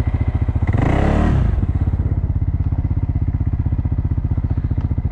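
CFMoto off-road vehicle's engine running with a steady, rapid pulse. About a second in it revs up and back down once, briefly.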